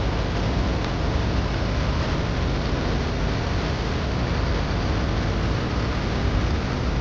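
Vintage tractor engine running steadily, a constant low rumble mixed with a rushing noise.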